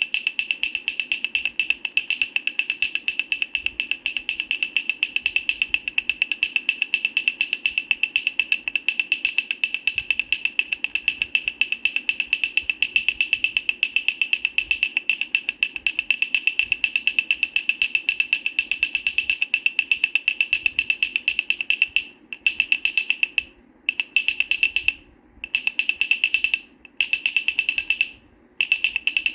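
Wooden baby rattle played with rapid, continuous rattling clicks, which break into short bursts with brief pauses in the last several seconds.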